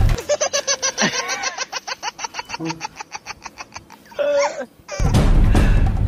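Rapid laughter, a run of quick 'ha-ha-ha' pulses about six a second that fades away, with a short squealing vocal glide near the end. Loud background music with drums comes back in about five seconds in.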